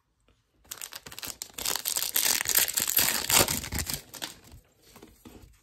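Crinkling of a foil trading-card pack wrapper as it is torn open and handled, loudest in the middle, then fading to lighter rustling of cards being handled.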